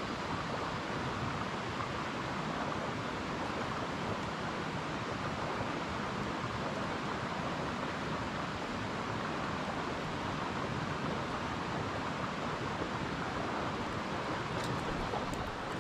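A steady rushing noise with no rhythm or pitch, holding level throughout, with a few faint high ticks near the end.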